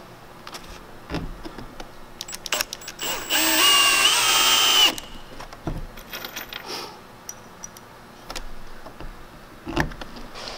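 Cordless drill driving a long screw through the fan ring into the wooden adapter ring: one whine of about a second and a half, about three seconds in, that cuts off abruptly as the screw seats. A few short handling clicks and knocks around it as screws and drill are set.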